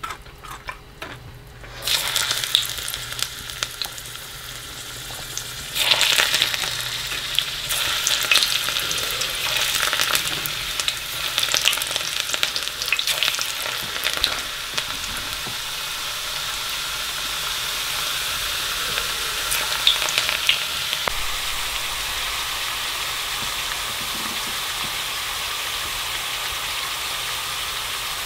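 Rehydrated sunchoke (Jerusalem artichoke) chips deep frying in hot raccoon fat in a small cast iron skillet. The sizzle starts about two seconds in and flares up with crackling as more slices are dropped in, then settles into a steady hiss as the soaked-in water cooks out of the chips.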